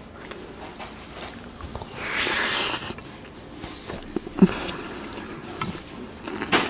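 Close-miked chewing of a mouthful of fried rice: small wet mouth clicks and smacks. A loud hissing burst lasts nearly a second about two seconds in, and a sharp smack comes about halfway through.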